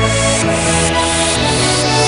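Electronic dance music with a heavy bass line and a steady beat.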